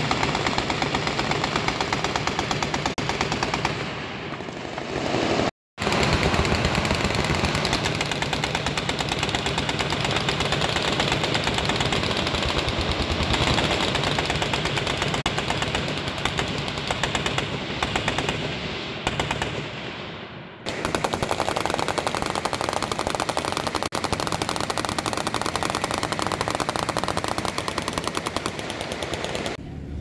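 Many machine guns firing at once in long, overlapping automatic bursts, a dense continuous rattle of fire. It cuts out completely for under a second about five and a half seconds in, then resumes.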